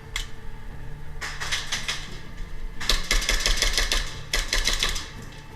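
Airsoft gun firing three rapid full-auto bursts of sharp clicks, the middle one the longest and loudest, after a single shot near the start.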